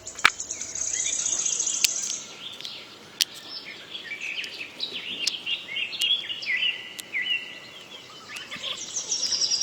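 Birds chirping and trilling: many short, high calls and a fast trill in the first couple of seconds, with a few faint clicks.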